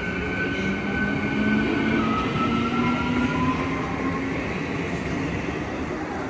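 ICF Medha electric multiple unit accelerating away from a station. Its wheels rumble on the rails over the whine of its electric traction motors, which rises slowly in pitch as the train picks up speed, while a few higher tones fall away.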